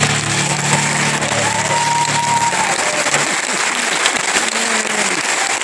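Audience applauding and cheering, with several whoops, as the band's last electric guitar chord rings out and fades over the first few seconds.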